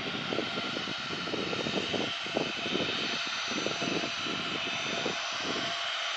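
Boeing 737 twin jet engines running on the runway. A steady whine sits over an uneven, fluttering low rumble, which eases near the end.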